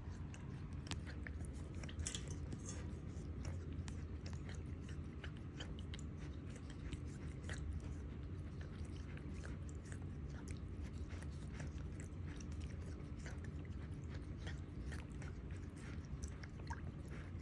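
Serval breathing heavily close up, with many small, irregular clicks throughout over a steady low rumble.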